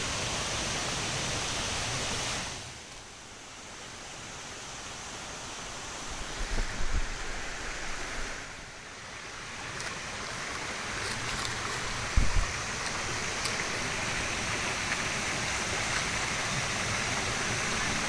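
Steady rush of a waterfall and stream. The noise drops away twice for a second or so, and there are a couple of brief low thumps.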